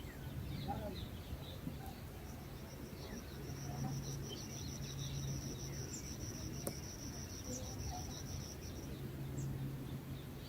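An insect trills steadily on one high pitch, starting about three seconds in and stopping about six seconds later, with faint scattered bird chirps and a low steady hum underneath.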